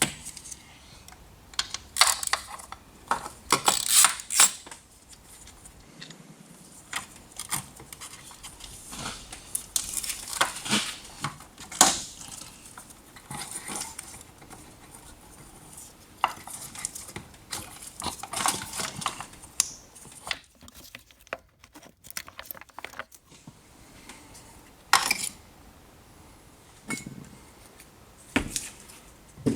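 Hand tools and metal engine parts clinking and clicking in irregular bursts, with short quiet gaps between them, during work on the fuel rail and injectors of a Peugeot TU engine.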